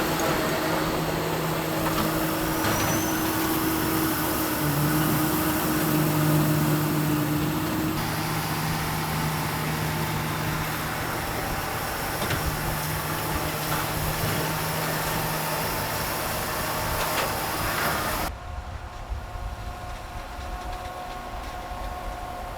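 Tractor engine running steadily as it pulls a Vermeer 604S Premium round baler baling alfalfa hay, the baler's machinery running under it. The sound changes abruptly about a third of the way in and again near the end, becoming quieter for the last few seconds.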